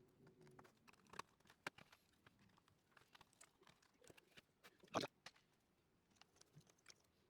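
Faint, sparse clicks and taps of small hard parts being handled during keyboard assembly, with one sharper click about five seconds in.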